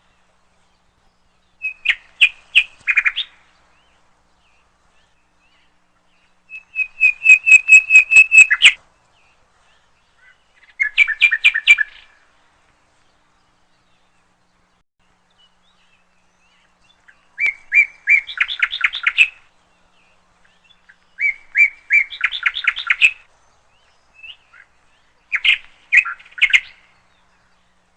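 A songbird singing in short phrases of quick repeated chirps and trills, about seven phrases in all, with pauses of one to several seconds between them.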